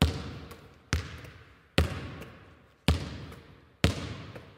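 A basketball bouncing five times, a little under once a second. Each bounce is a sharp thud followed by a long echoing tail.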